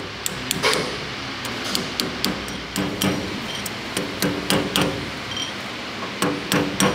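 Hammer striking a brass drift to tap a tapered roller bearing home on a steel stub axle. It makes a quick, uneven run of metallic taps, each with a short ring, at roughly three a second and some in pairs.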